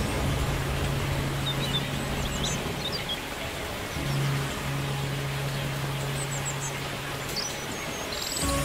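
A steady low hum that breaks off for about a second and a half partway through, under an even hiss, with birds chirping briefly now and then.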